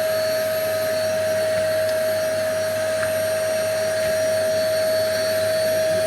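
Kärcher WD 3 P wet/dry vacuum running steadily, a constant whine from its motor over the rush of air through the floor tool.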